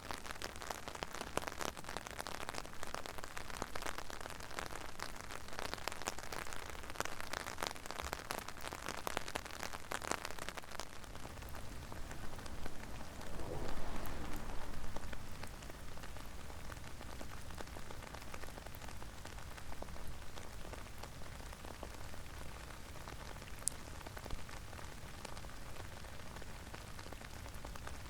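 Rain falling, a steady hiss full of close individual drop strikes, dense for the first ten seconds or so and thinner after that. A brief louder swell comes around the middle.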